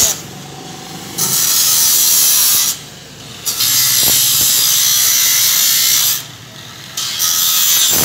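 Angle grinder with an abrasive cut-off disc cutting through a metal pipe: a loud, steady grinding screech. It breaks off three times for under a second each before biting into the metal again.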